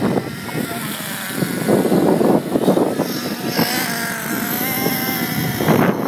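Radio-controlled car's motor whining as it drives about, its pitch wavering up and down with the throttle from about halfway through.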